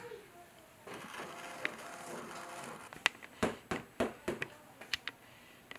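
Fingers tapping the face of a freshly stretched photo canvas on its wooden stretcher frame: a quick, irregular run of light taps starting about three seconds in. The sound of the taps is the check on whether the canvas is stretched tight enough.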